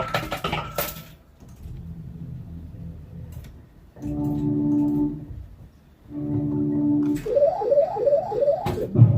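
Arcade claw machine's electronic game music: held synth notes, then, about seven seconds in, quick repeated rising bleeps, about four a second.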